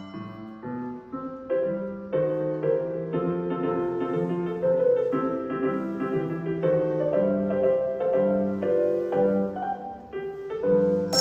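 Piano accompaniment playing a passage of sustained chords over a bass line, with no handbells ringing.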